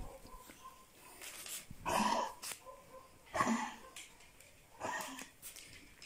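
A dog coughing three times, about a second and a half apart, each a short, harsh, wheezy cough: the cough of a dog with lung cancer.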